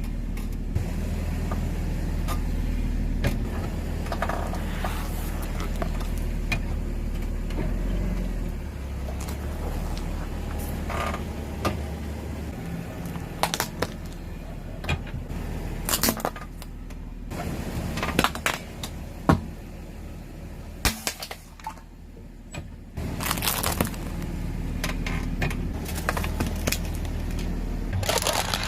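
A car's engine running low and steady as it rolls slowly, then sharp cracks and crunches scattered through the second half as objects break under its tyres.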